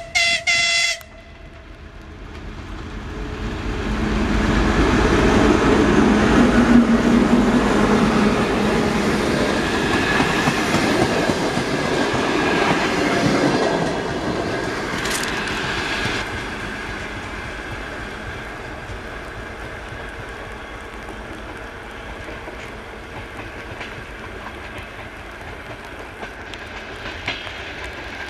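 A TEP70 diesel passenger locomotive sounds two short horn blasts in the first second. It then passes close by with its V16 diesel running, and the wheels clatter over the rail joints. The passing coaches fade steadily as the train moves away.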